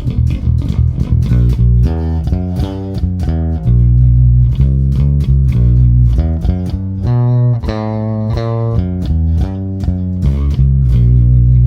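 Warwick Vampyre SN-5 five-string electric bass played through a Neural DSP Quad Cortex: a line of plucked notes with a heavy low end, several notes held for a second or more. One of the bass's onboard tone controls is turned all the way down.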